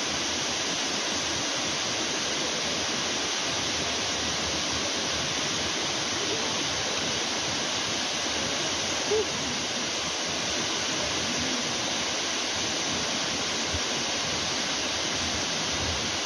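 Steady rush of water from a waterfall, an even hiss with no rhythm. A short sound rises briefly above it about nine seconds in.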